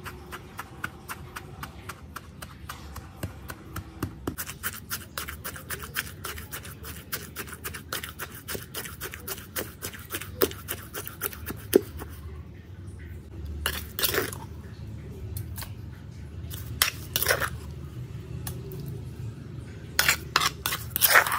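Pestle pounding garlic, red chilli and salt in a stone mortar: rapid strikes, several a second. After about twelve seconds the pounding stops, and a metal spoon scrapes the paste out of the mortar in a few louder scrapes, the last ones near the end.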